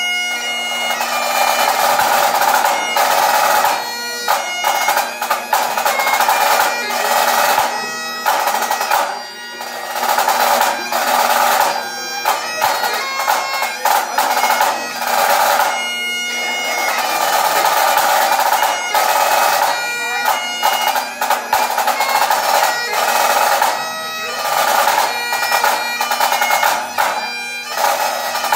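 Bagpipes playing a tune, the chanter melody over steady drones, with a snare drum playing along in pipe-band style.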